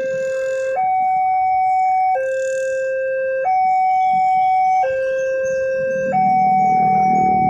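Railway level-crossing warning alarm sounding, alternating between a higher and a lower steady tone about every 1.3 seconds. It signals that the crossing is closed for an approaching train.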